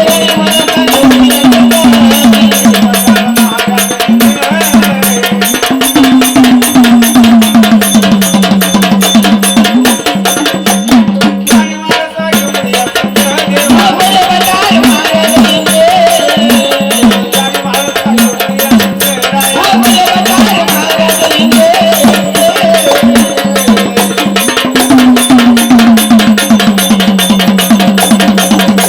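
Marathi folk song: a singer's voice over hand drums and percussion keeping a steady, fast beat.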